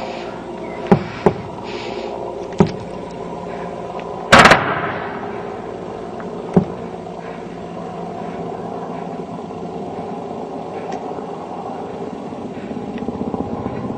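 A steady droning hum broken by five sharp bangs, three in the first three seconds, the loudest and longest about four and a half seconds in, and a last one a couple of seconds later.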